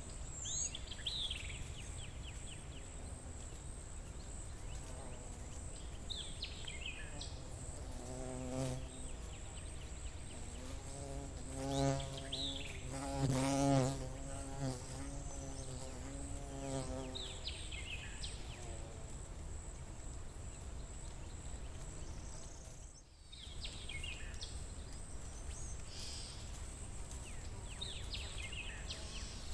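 Forest ambience: a flying insect buzzes close past, its hum swelling about a quarter of the way in, wavering in pitch, loudest near the middle and then fading away. A bird sings a short phrase every few seconds over a steady high-pitched whine.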